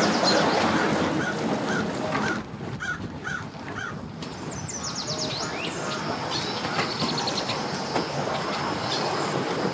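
Steady outdoor rumble, heavier in the first couple of seconds, with a bird's repeated short chirps. Later come quick, high, squeaky falling calls and a run of short high notes.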